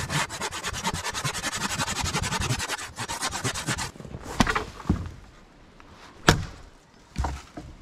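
Hand saw cutting through a fallen tree across a trail with rapid, even strokes, stopping about four seconds in. A few sharp, loud knocks follow, the loudest about six seconds in.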